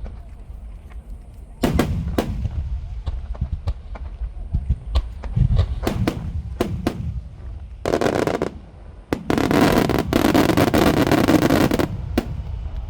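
Aerial fireworks shells bursting in quick succession, each a sharp bang over a deep rumble. Later come two dense, loud stretches of rushing noise, the longer running for about two and a half seconds and stopping abruptly near the end.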